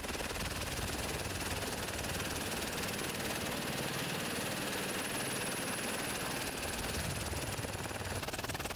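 Steady, unbroken engine noise with a fast flutter, and a faint high whine that stops near the end.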